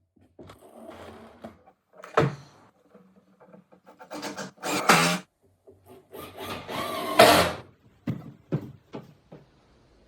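Hand work laying flooring: flooring pieces being handled and knocked, with two longer scraping, sliding sounds in the middle and a quick run of three knocks near the end.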